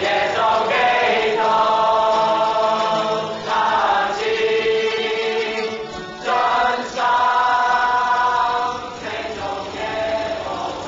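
A group of voices singing a slow worship song together, in long held notes. The singing comes in about three phrases with brief breaks between them, and grows quieter near the end.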